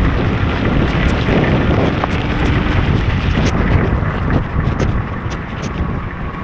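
Wind buffeting the microphone on a moving motorcycle in heavy rain, a dense low rumble mixed with the hiss of rain and tyres on the wet road, with a few sharp ticks. It eases slightly near the end.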